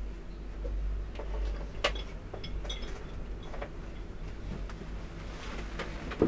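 Steady low room hum with scattered light clicks and taps of small objects being handled, and a sharper click right at the end.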